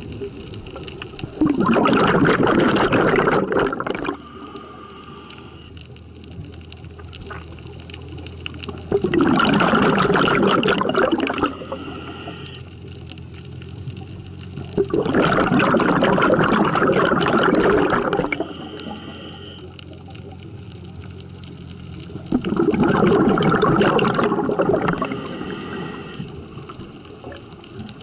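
Washing machine in its wash cycle: water sloshing in the drum in four surges of about three seconds each, with quieter pauses between as the drum or agitator stops and turns again.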